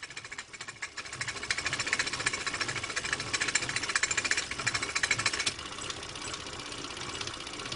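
Film projector running: a fast, even mechanical clatter, louder through the middle and fainter for the last couple of seconds.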